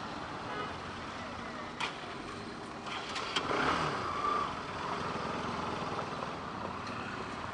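Road traffic noise in a jam: a steady wash of vehicle engines, with a few sharp clicks and a slightly louder stretch about three to four seconds in.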